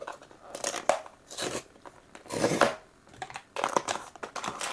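A Pop Mart blind box being opened by hand: its packaging crinkles and tears in several short, irregular bursts.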